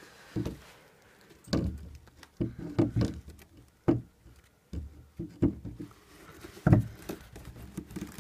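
Irregular knocks and thuds as a freshly painted stand side panel is worked onto bed post hooks on the front piece. The hooks are a tight fit because of the new paint.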